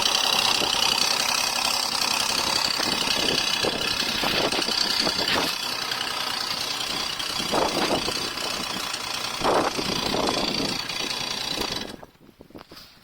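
Honda Gyro Canopy scooter engine running with a dense rattling noise, the abnormal noise under investigation, with a few brief louder surges. It cuts off abruptly near the end.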